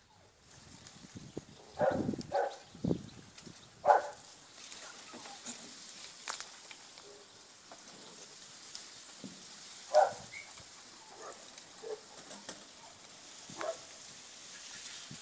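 A dog giving short yips, singly and in quick pairs, scattered through, the loudest two about four and ten seconds in, over a faint steady hiss.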